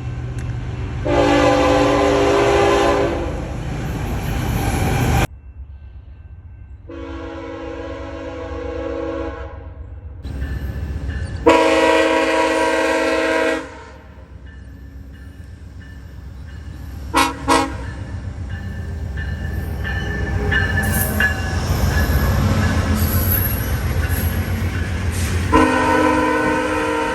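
Locomotive air horns sounding as a run of separate chords of two to three seconds each, with abrupt cuts between some of them. Two very short toots follow, then a passing train's low rumble builds, and another long horn chord starts near the end.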